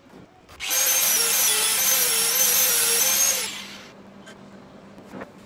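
Handheld power drill running under load for about three seconds, its motor whine wavering a little, then stopping.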